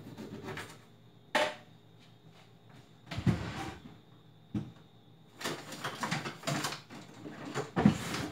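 Someone handling things in a kitchen: a series of knocks, clunks and rustles, with a sharp knock about a second and a half in and the loudest clunk near the end.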